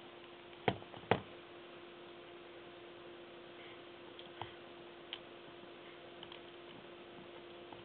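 Hard tortoise shells knocking as the tortoises clamber against the vivarium: two sharp knocks close together about a second in, then a few fainter clicks, over a steady low hum.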